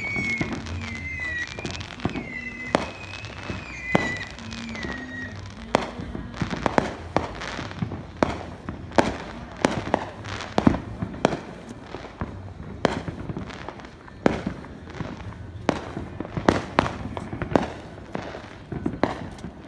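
Fireworks going off: a dense run of sharp bangs and cracks, several a second, with a wavering high tone during the first five seconds.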